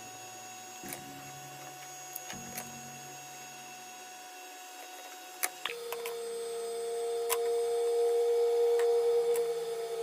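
Sustained electronic tones with a few sharp clicks. About six seconds in, a louder steady mid-pitched tone swells in and eases off near the end.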